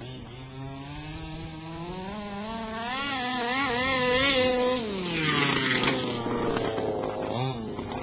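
Small two-stroke engine of a gasoline remote-control car revving. Its pitch climbs steadily for about four seconds, wavers briefly at the top, then drops away as the throttle comes off, with a short blip of throttle near the end.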